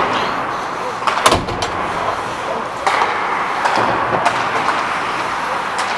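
Ice hockey skates scraping and carving on the rink ice as a player skates, with a few sharp clacks, the loudest about a second in.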